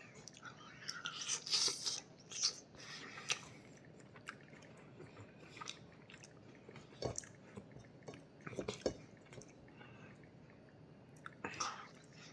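Close-up mouth sounds of a person chewing food, with wet smacks and clicks coming in clusters, busiest in the first few seconds and again about halfway through and near the end.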